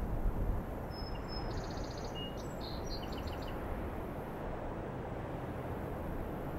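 Steady outdoor ambient noise, with a short run of faint, high bird chirps between about one and three and a half seconds in.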